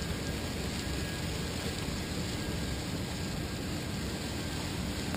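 Steady rushing noise of water pouring out of a canal lock's outflow pipe into a small basin while the lock's water level evens out.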